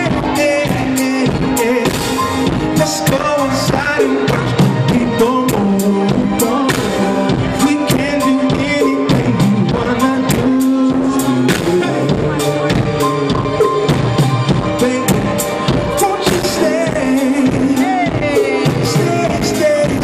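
Live band performance: a male singer singing over a drum kit keeping a steady beat, with bass and other instruments.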